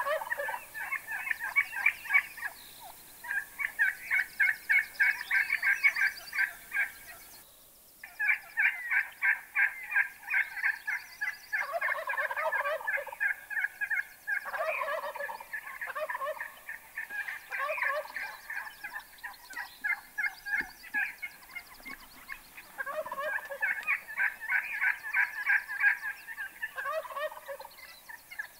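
Gould's wild turkey gobblers gobbling over and over, one gobble after another with several overlapping, with a brief lull about a quarter of the way in.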